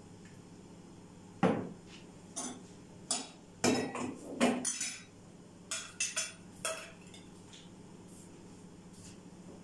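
Glass jars and a metal lid being handled on a countertop: a run of sharp clinks and knocks, bunched between about a second and a half and five seconds in, then a few more around six to seven seconds in.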